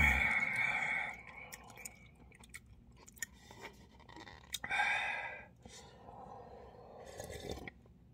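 A person chewing instant ramen noodles close to the microphone, with wet mouth clicks and a couple of short vocal sounds, one near the start and one about five seconds in.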